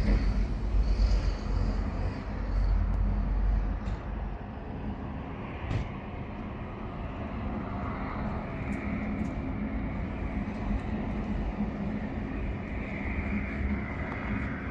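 Diesel truck engine idling with a steady low rumble. A faint high whine joins in about halfway through.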